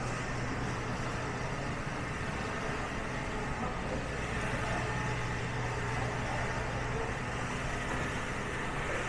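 Steady low mechanical hum under an even background noise, with no distinct events, typical of store equipment such as refrigerated display cases or fish-tank pumps.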